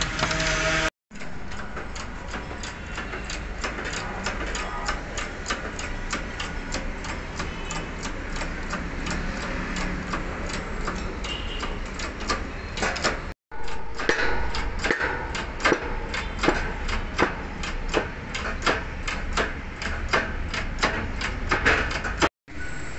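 Repeated sharp metallic taps and clicks, about two or three a second, from hand tools working on a wheel hub and steering knuckle, over steady workshop noise. The sound drops out suddenly twice.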